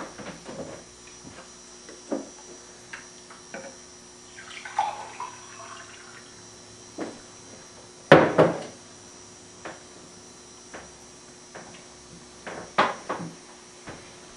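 Glasses, a plastic water pitcher and a bowl handled on a wooden table: scattered knocks and clinks, a brief pour of water about five seconds in, and louder clatters about eight and about thirteen seconds in.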